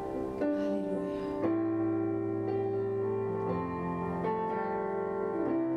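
Keyboard playing slow, sustained chords, changing chord every second or two.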